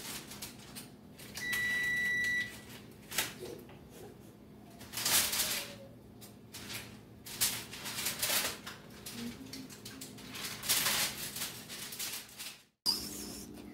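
An electric range's control panel gives one steady electronic beep lasting about a second, a couple of seconds in. Then come a series of knocks, clatters and foil rustles as a foil-lined pan of ribs is handled on the stovetop.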